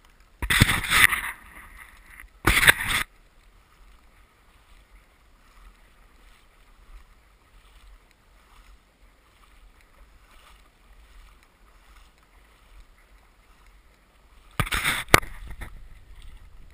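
Splashing and sloshing in shallow lake water as a retriever wades back with a shot Canada goose: two loud splashes close by near the start, faint regular splashes in the middle, and loud splashing again near the end as the dog comes close.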